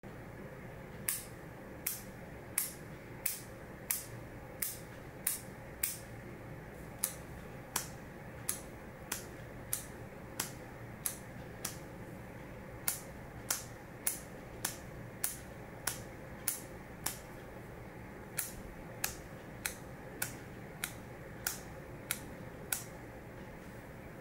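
A steady series of short, sharp clicks, about three every two seconds with a few skipped beats, over a faint steady hum.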